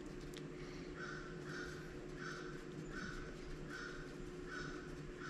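A bird calling over and over, short even-pitched calls about one every 0.7 seconds, starting about a second in.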